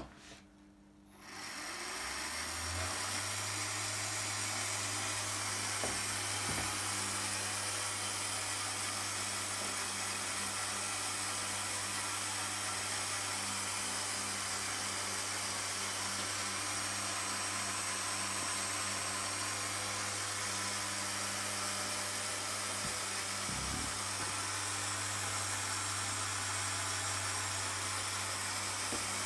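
Electric drive motor of a Meccano model railway station platform truck running under power, a steady whirring hum with a hiss over it, starting about two seconds in.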